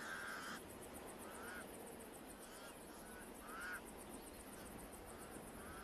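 Pied crows calling: several short, faint caws spaced about a second apart, the first the longest, over a faint steady hiss.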